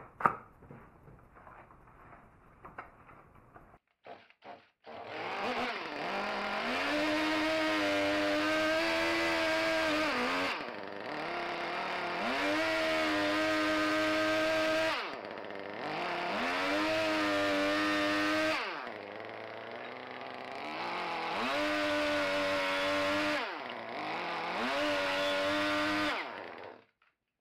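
Electric chainsaw plunge-cutting into a wooden burl bowl blank to rough out the interior, in five runs of a few seconds each. Each run winds up to a steady whine and spins down between cuts.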